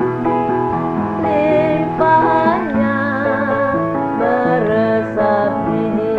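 Keroncong song sung by an elderly woman in a wavering vibrato, over piano accompaniment.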